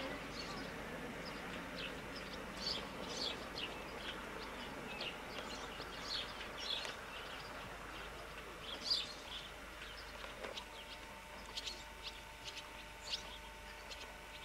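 Small birds chirping, with many short, high chirps scattered throughout over faint background hiss.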